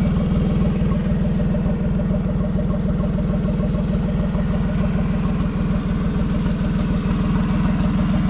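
Suzuki 40 hp four-stroke outboard idling steadily while it is flushed with fresh water from a garden hose hooked to its lower unit.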